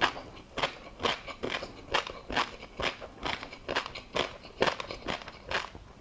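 Close-miked, rhythmic chewing of a mouthful of tobiko (flying fish roe) with crunchy seafood topping: sharp crunches and pops at about two a second.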